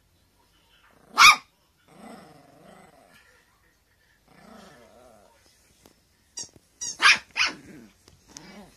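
Teacup poodle barking: one loud sharp bark about a second in, two low drawn-out growls, then four or five quick barks near the end. It is demand barking, begging for a toy to be thrown.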